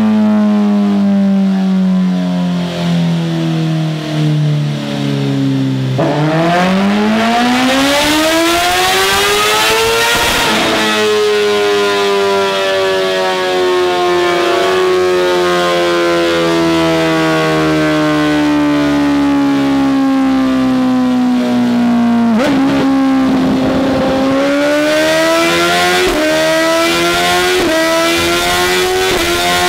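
BMW S1000RR inline-four engine running on a rolling-road dyno: the revs fall away, then climb steeply for about four seconds, then wind down slowly for about twelve seconds. After a brief dip the revs rise again near the end.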